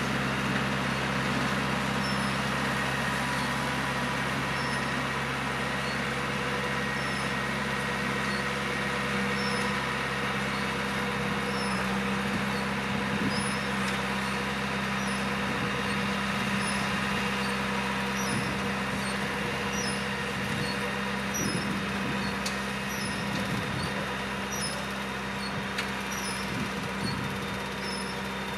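Farm tractor's diesel engine running steadily under load as it pulls a harrow through tilled soil. The drone slowly fades as the tractor moves away.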